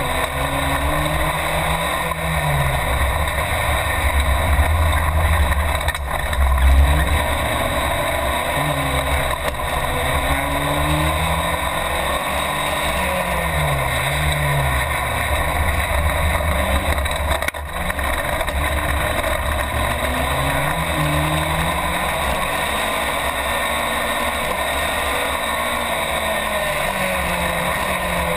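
Race car engine heard from inside the cabin, revving up and dropping back again and again as the car is driven hard on a dirt track, over a steady rush of road noise. A louder low rumble comes about a quarter of the way in.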